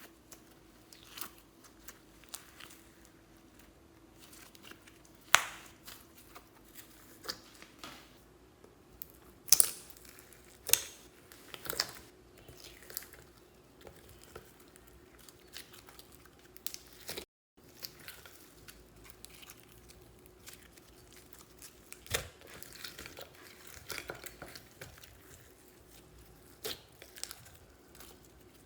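Slime being squished and stretched by hand, with scattered sticky crackles and sharp pops at irregular intervals, a few much louder than the rest.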